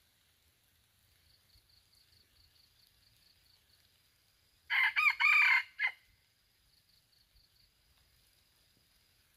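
Red junglefowl rooster crowing once about halfway through: a short crow of about a second, broken into four quick syllables.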